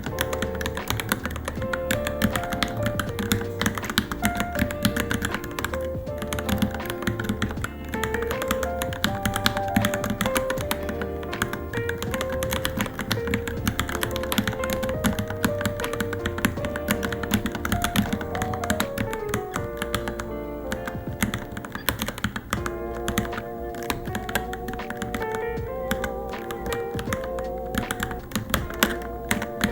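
Continuous fast typing on a Varmilo Minilo mechanical keyboard, key clicks coming rapidly, with background music playing.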